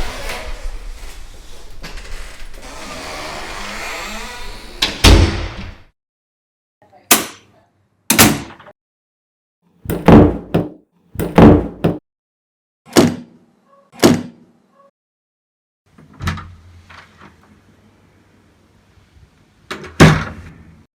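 A door being shut again and again: about nine separate thuds, each short and sharp with a brief ring after it, spaced one to four seconds apart. The first comes after a few seconds of steady noise.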